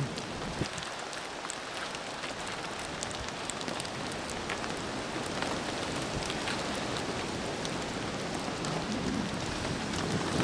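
Steady rain falling on a plastic tarp shelter, an even hiss with many scattered sharper drop ticks, growing a little louder toward the end.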